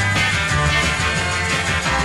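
Instrumental rock and roll music: guitar over a strong, steady bass line, with no singing.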